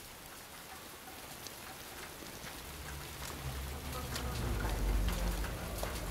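Steady rain hiss with scattered ticks of falling drops. A deep low rumble swells in about halfway through and is loudest near the end.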